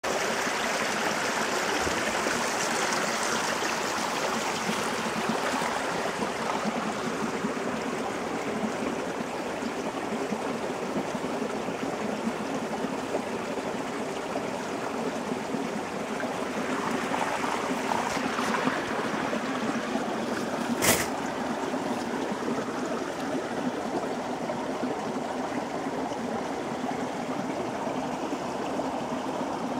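Steady rush of running water, as from a nearby stream, with one sharp click about 21 seconds in.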